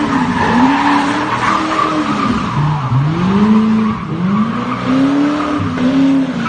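Offroad Corvette's engine revving up and down while its rear tires spin and squeal on asphalt in a donut burnout. The engine pitch drops sharply about three seconds in, then climbs again.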